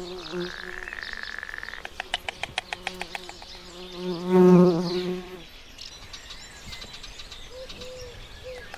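A fly buzzing, coming and going and loudest as it passes close about four and a half seconds in. A high whistled note rises at the start, and a quick run of ticks comes about two to three seconds in.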